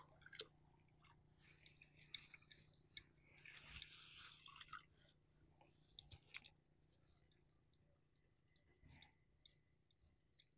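Near silence with faint handling noises: a few soft clicks and, about three seconds in, a short crackling rustle, as a small fish is worked free from a wet nylon gill net.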